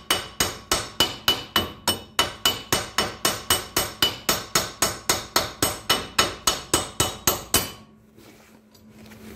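A big hammer strikes a broken wheel stud in a Volvo wheel hub, metal on metal, in a fast steady run of about four blows a second, each with a short ring. The blows are driving the old stud out of the hub. They stop near the end.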